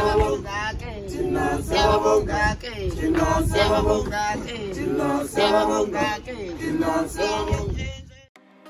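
Singing by several voices over a low rumble, cutting off abruptly near the end.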